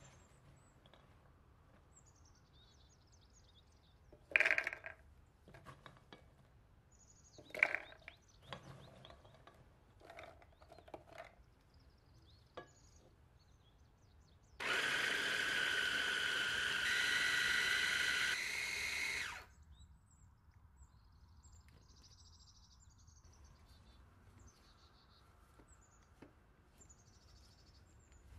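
Electric food processor motor running for about five seconds, chopping soaked chickpeas, onion and fresh herbs into a coarse falafel mix; its whine steps up in pitch partway through as the load breaks down. Earlier, two sharp knocks and a few lighter clicks as the ingredients and bowl are handled.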